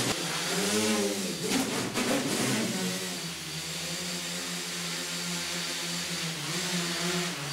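Quadrotor's electric motors and propellers whirring, the pitch swinging up and down through fast manoeuvres in the first few seconds, with a few sharp clicks about two seconds in. The whir then holds a steady pitch as the drone recovers and locks into a hover.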